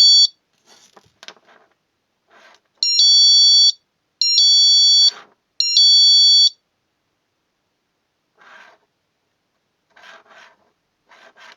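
A small magnetic door/window alarm shrieking with a loud, high-pitched electronic alarm tone in short bursts of under a second, three times in quick succession after one cut off at the start, each set off when the magnet part is taken away from the sensor. Soft handling rubs and clicks fill the gaps and the end.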